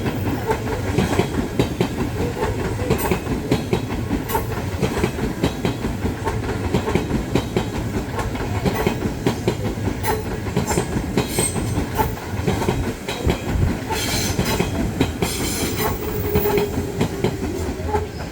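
Odakyu Line electric train passing over a level crossing, its wheels clattering steadily over the rail joints, with a brief squeal near the end.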